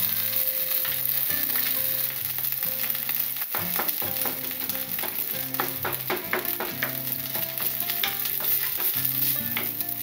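Butter and ketchup sizzling in a hot frying pan, making a butter-ketchup sauce. A wooden spatula stirs and scrapes through it, with many quick clicks from about three and a half seconds in.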